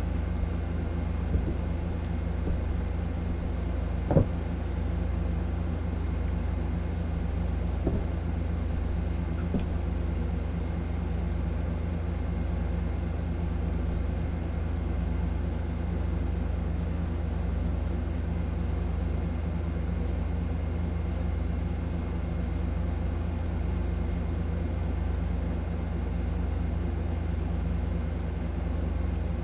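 A steady low rumble with a faint hum, and a few brief thumps, the loudest about four seconds in.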